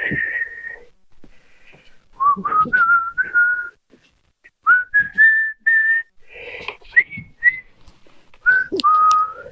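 A person whistling a tune in short phrases of held notes, with a few brief clicks of handling between them.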